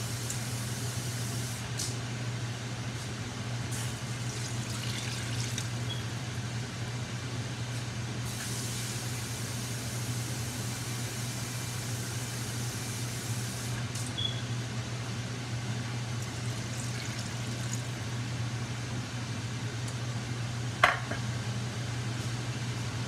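Oxtail stew simmering in a wide pan over a steady low hum and hiss, with one sharp click near the end.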